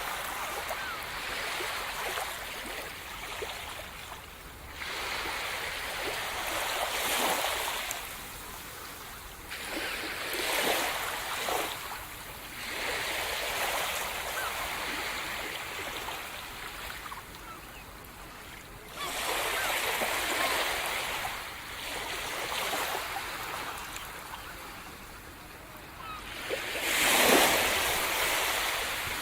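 Sea surf breaking and washing on a shore, in repeated waves that swell into a hiss and fall back every few seconds; the loudest wave comes near the end.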